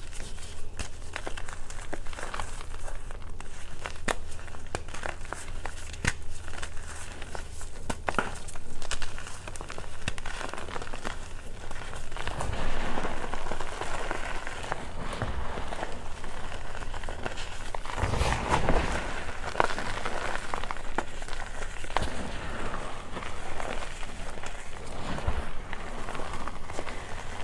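Reformed gym chalk crushed and crumbled by hand: dry chalk chunks crunching and crackling as they break, with powder and grit sifting through the fingers in a steady stream of small crunches.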